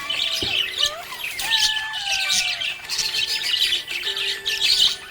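Small pet parrots chirping and squawking in a dense, continuous chatter, with a few longer whistled notes sliding down in pitch.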